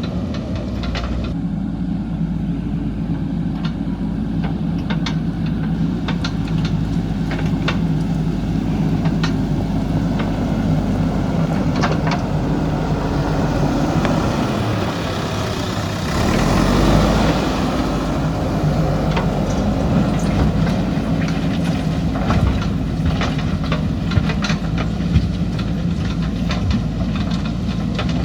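JCB backhoe loader's diesel engine running steadily while working, with scattered clanks and knocks of the machine handling soil and stone. The engine swells louder for a couple of seconds a little over halfway through.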